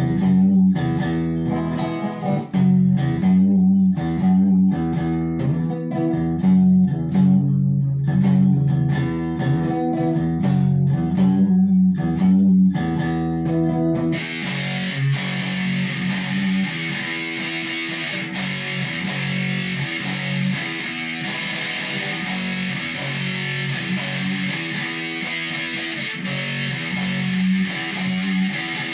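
Squier Sonic Stratocaster electric guitar played through a Fender amp: a picked riff of repeated low notes. About halfway through, the tone turns brighter and fuzzier, with a steady hiss over the notes, as the overdrive comes in.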